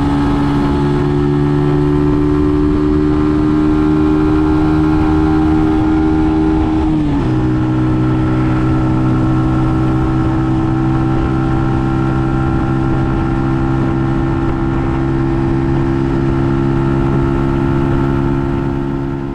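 Brixton Cromwell 125's single-cylinder four-stroke engine running steadily under way. Its pitch steps down once about seven seconds in, then holds steady again.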